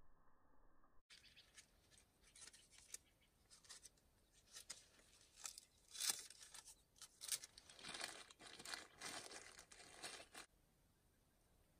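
Irregular rustling and scraping handling noise: a string of sharp clicks and short noisy bursts from about two seconds in, loudest about six seconds in, that stops suddenly near the end.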